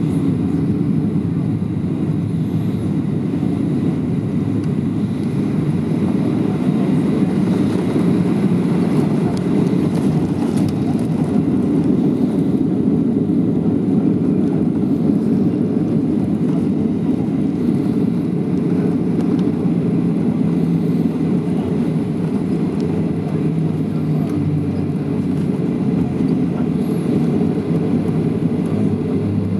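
Cabin noise inside a Boeing 737-700 on the ground after landing: a steady low rumble of its CFM56-7B engines and the aircraft rolling along the taxiway.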